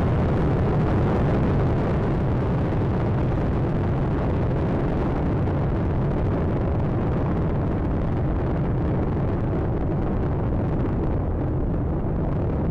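Space Shuttle Atlantis's solid rocket boosters and main engines firing during ascent: a loud, steady, deep rocket noise, its higher part thinning slightly near the end.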